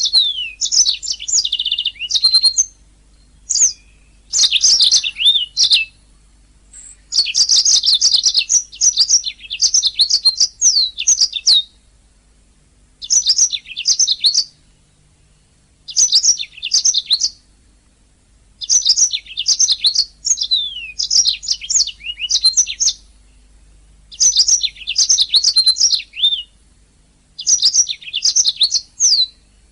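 Domestic canary singing: phrases of rapid, high chirps and trills with quick sliding notes, delivered in bursts of a couple of seconds each with short pauses between.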